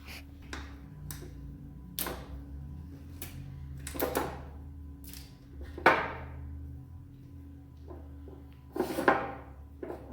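Zip ties being cut off the hoses of a new skid steer tilt hitch: a few sharp plastic snaps and clatters at irregular intervals, the loudest about two-thirds of the way through, with more handling knocks near the end. A steady low hum runs underneath.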